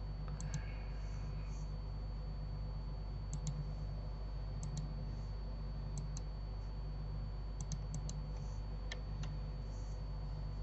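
Computer mouse clicks, single and in quick pairs, spaced irregularly over a steady low electrical hum.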